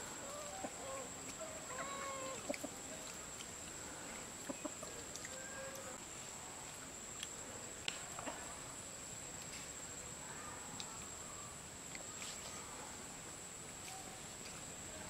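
Domestic chickens clucking, mostly in the first few seconds and again around ten seconds in. A steady high-pitched whine runs underneath, with scattered light clicks.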